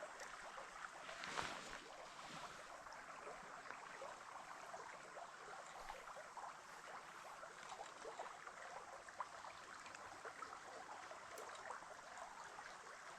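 Faint steady rush of a small creek's flowing water, with scattered small ticks and a brief louder rustle about a second and a half in.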